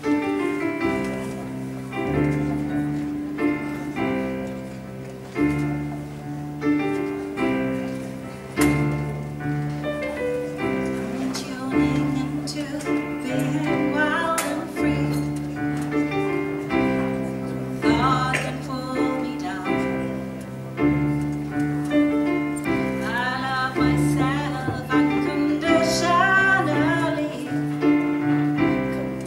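Live song: a keyboard plays repeated piano chords at an even pace, and a woman's singing voice comes in over it partway through.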